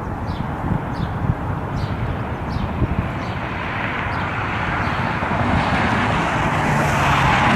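Jet airliner's engines growing steadily louder from about three seconds in, over wind buffeting the microphone. Faint bird chirps in the first few seconds.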